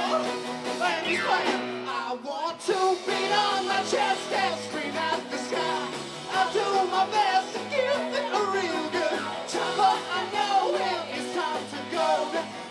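Live band playing a rock song: strummed acoustic guitar, electric guitar and drums, with several voices singing.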